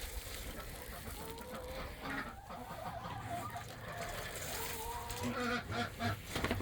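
Domestic hens clucking softly, a series of short, scattered calls.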